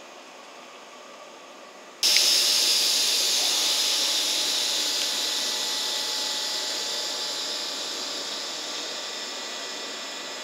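A sudden loud hiss of compressed air venting from the 117-series train's air system, starting about two seconds in and slowly fading.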